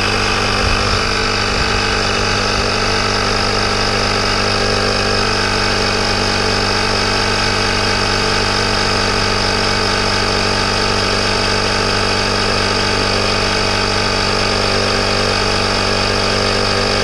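Oneamg portable tyre inflator's electric compressor running steadily, pumping up a car tyre toward its set 33 PSI.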